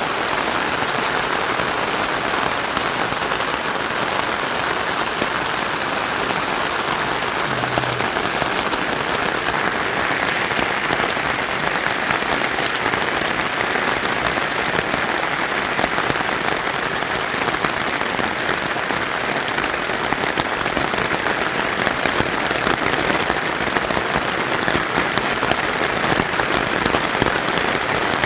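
Steady heavy rain, a dense even hiss of countless drops striking surfaces.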